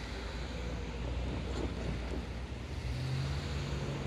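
Hankai Tramway Mo 701-type tram running away along the track, heard as a steady low rumble that is fading into the distance, under wind on the microphone; a steady low hum sets in about three seconds in.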